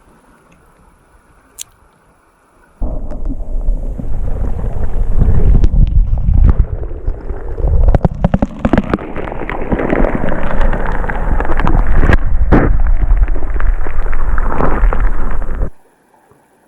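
Loud, low rumbling noise on the microphone with scattered knocks. It starts abruptly about three seconds in and cuts off abruptly near the end.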